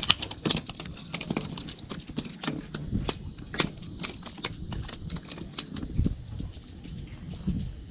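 A landed fish flopping and slapping on a concrete boat ramp, then a plastic cooler's lid being handled: a string of irregular sharp taps and knocks.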